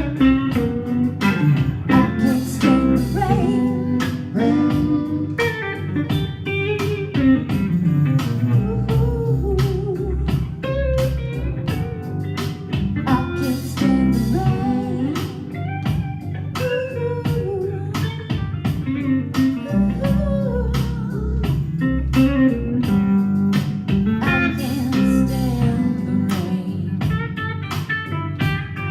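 Live blues guitar music: melodic guitar lines over a steady low accompaniment, with some singing.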